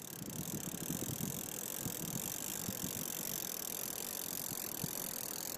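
Penn 9/0 Senator big-game reel being wound in, its gears giving a steady run of light rattling ticks over a steady high hiss.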